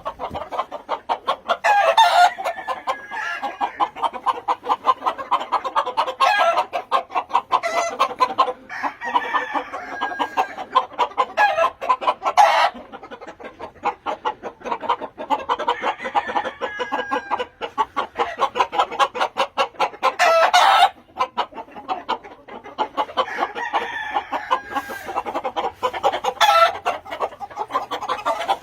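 A yard full of gamefowl chickens clucking continuously, with roosters crowing several times and a few sharp, loud squawks.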